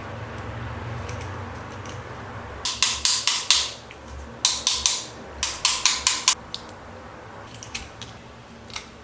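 Hand work on the grinder's metal parts: quick runs of short, sharp strokes in three clusters through the middle. A low steady hum fades out just before they begin.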